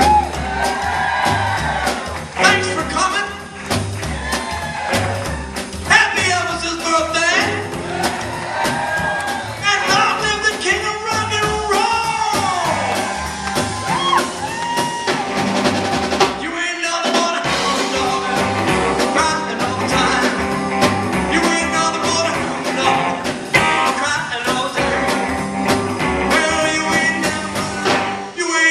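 Live rockabilly band playing: electric guitar, drum kit and upright bass with a stepping bass line. The whole band stops for a moment about sixteen seconds in, then comes straight back in.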